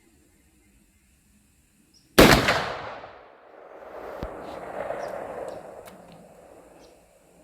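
A single gunshot from a .500 Magnum revolver firing a 330-grain load: one sharp, very loud crack about two seconds in that trails off over about a second. A duller swell of noise follows and fades out over the next few seconds.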